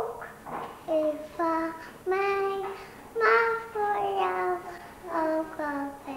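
A young child singing a simple tune in a string of short held notes with brief gaps between them.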